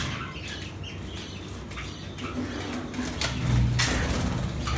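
Budgerigars flapping their wings as they take off and fly about, in several short flurries, the strongest near the end.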